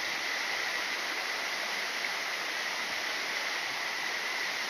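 Steady rushing of a forest river running over rocks, with a thin, steady high tone held through it.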